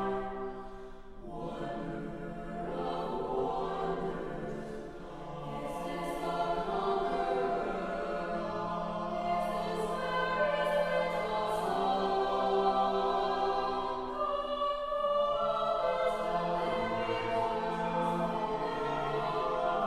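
A jazz choir sings a sacred choral piece a cappella, in held chords with short pauses between phrases. It grows fuller and louder after the first few seconds.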